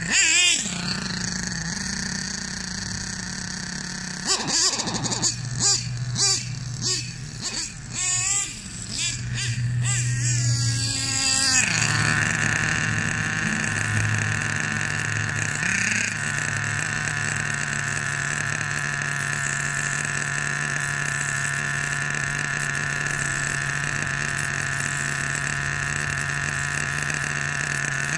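Hobao Hyper 30 Turbo nitro engine of an RC monster truck, revving in short uneven bursts, then rising in pitch about twelve seconds in and settling into a steady high idle. The engine runs unevenly and keeps bogging, which the owner says needs further tuning.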